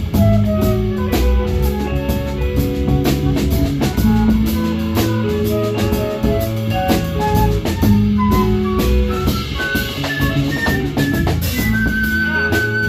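Live band playing an improvised piece: drum kit and bass keeping a steady groove, with guitar and a high melodic line of short stepping notes above them, ending on a long held high note.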